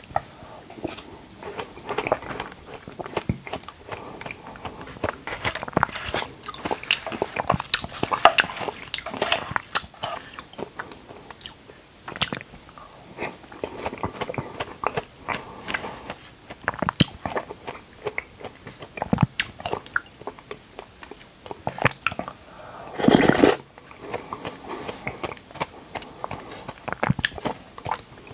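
A person chewing and biting dragon fruit close to the microphone: an irregular run of short, sharp mouth clicks and bites, with one louder, longer burst about four-fifths of the way through.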